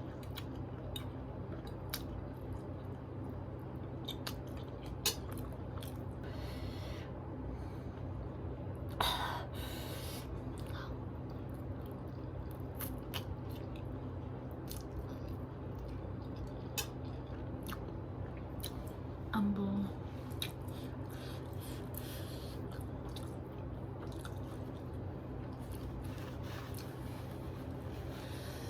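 A person chewing spicy noodles, with scattered small wet mouth clicks and smacks over a steady low hum. A short vocal sound comes about two-thirds of the way in.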